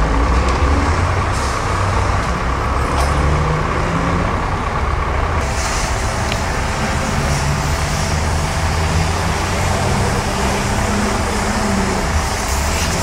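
Heavy construction-site engine, such as a crane's or truck's, running steadily with a low, wavering rumble over general site noise.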